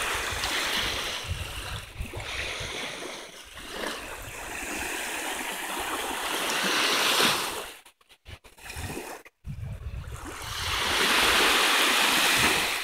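Small freshwater waves lapping and washing up on a sandy shore, swelling about seven seconds in and again near the end, with a low rumble of wind on the microphone. The sound cuts out briefly twice past the middle.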